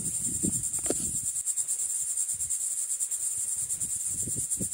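Steady high-pitched insect chorus, a fast evenly pulsing trill, with a few soft low knocks underneath.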